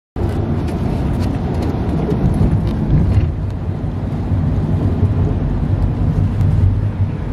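Car cabin noise while driving in the rain: a steady low rumble of the engine and tyres on the wet road, with scattered light ticks of raindrops on the car.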